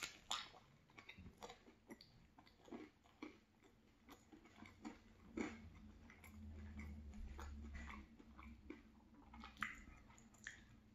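Biting into and chewing a soft cheese bagel with jam filling: faint close mouth clicks and smacks throughout, with a low hum for a couple of seconds midway.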